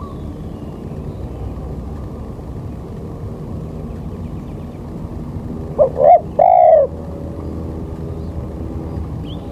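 A bird calls three times in quick succession about six seconds in, loud arched notes with the last one held longest, over a steady low rumble.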